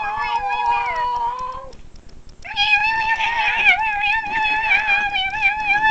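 Domestic cat yowling: two long, drawn-out yowls, the first ending under two seconds in, the second held steadily after a short break.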